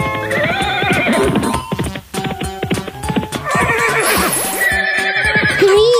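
A cartoon horse whinnying twice, with a run of hoof clip-clops between the calls, over steady background music.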